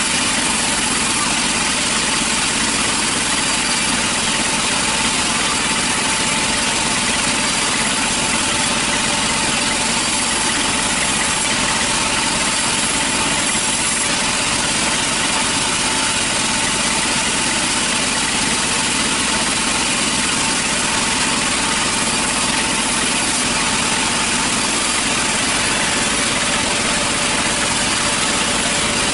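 Sawmill saw machinery running steadily, a constant mechanical hum with a hiss and a few steady tones, unchanged throughout.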